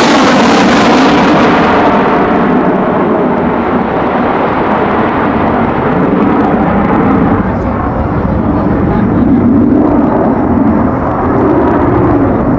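Military jet engines roaring as aircraft pass close. The hissing top of the roar fades about two seconds in, leaving a loud, steady lower rumble as they draw away.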